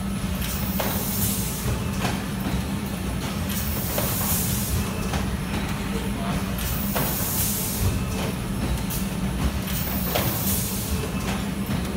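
Automatic sock boarding machine running: a steady hum under a long hiss that swells about every three seconds, with irregular metallic clacks as the metal sock forms index along the line.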